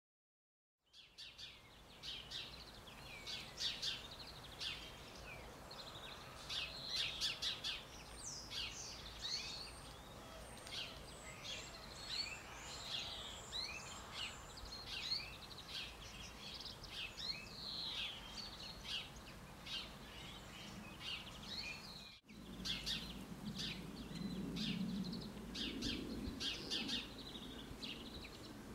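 Small garden songbirds chirping and singing, many short high calls and trills overlapping, over a faint low hum. The sound begins about a second in and breaks off briefly about 22 seconds in.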